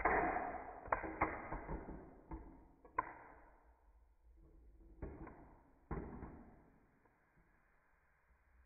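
Plastic Mouse Trap board game contraption being set off: a rattling, clattering run of plastic parts and a marble, with sharp clacks between, in several bursts that each die away.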